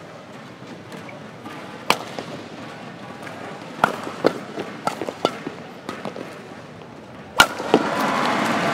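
Badminton rackets striking a shuttlecock in a rally, a handful of sharp hits a second or so apart, the loudest near the end as a player leaps into a jump smash. Just after it, crowd noise swells up and holds.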